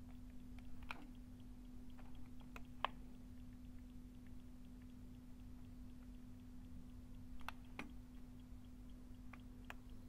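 Overloaded 9 V smoke alarm ticking faintly and evenly, about three ticks a second, over a steady low hum instead of sounding its alarm; the owner blames wiring it with reversed polarity. A few louder clicks come from its test button being pressed.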